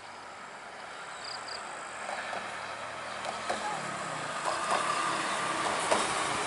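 Mercedes-Benz OH 1626 coach driving along a highway toward the camera, its engine and tyre noise growing steadily louder as it approaches.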